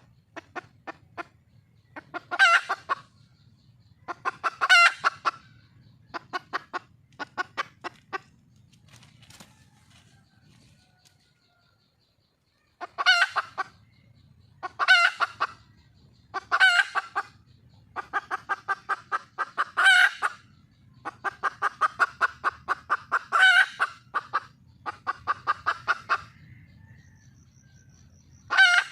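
Red junglefowl hen calling: runs of rapid clucks that build into louder, pitched cackling calls, repeated every couple of seconds, with a pause of a few seconds about a third of the way in. This is the hen's call to attract a male.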